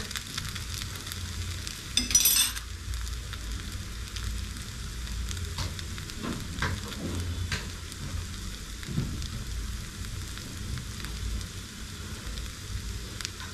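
A grated potato, carrot and onion fritter bound with egg and flour sizzling steadily in a nonstick frying pan, with a brief sharp sound about two seconds in.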